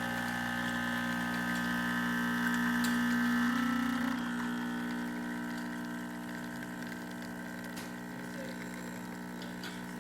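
Expobar espresso machine's pump running steadily during a shot, a steady hum with water flowing, building about 9 bar now that its stuck plunger has been freed. The hum shifts and drops a little about four seconds in.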